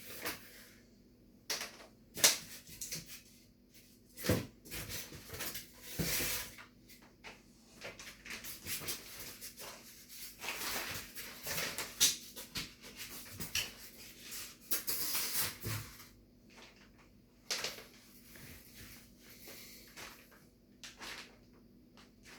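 Polystyrene packing pieces being pulled away from a washing machine and handled: irregular scraping and rustling with several sharp knocks, busiest in the middle and quieter near the end.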